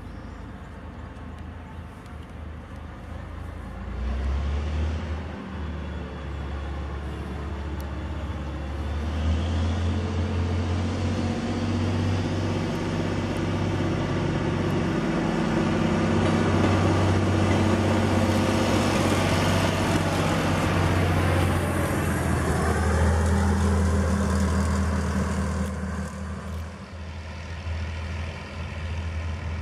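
Engine of a Plymouth switcher locomotive running with a steady low hum as it hauls a caboose past. It grows louder over the first half and falls away near the end.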